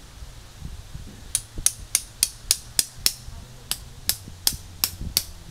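A hammer driving a tent stake into the ground. It starts about a second and a half in with a run of about thirteen sharp strikes at roughly three a second, with a brief pause near the middle.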